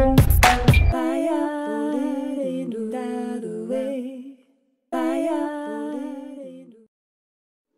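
Background music: the beat drops out about a second in, leaving a soft wordless melody in two phrases with a short break between them, then silence near the end.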